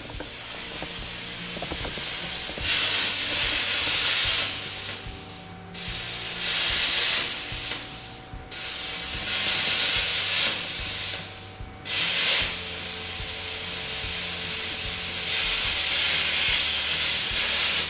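Miller plasma cutter hissing as it cuts through seized, rusted body bolts under a car, in four long runs of a few seconds each with short breaks between.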